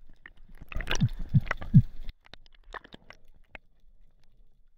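A spearfisher grunting underwater to draw in curious kingfish: three short, low grunts in quick succession about a second in, over a wash of water noise, followed by a few faint clicks.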